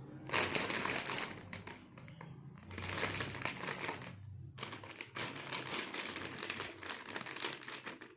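Empty plastic snack wrappers being crinkled and crumpled, in three long spells of crackling with short breaks between them.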